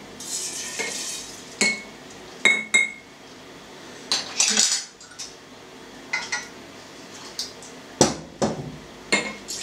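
A metal teaspoon clinking and scraping against glass as activated yeast is scraped out of a drinking glass into a three-litre glass jar: a dozen or so separate sharp clinks and taps, several with a short ring.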